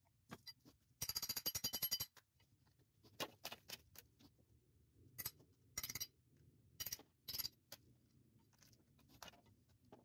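Hand tools knocking and clinking against the metal hub of an old axle's wheel: a quick rattling run of clicks about a second in, then scattered single taps and knocks.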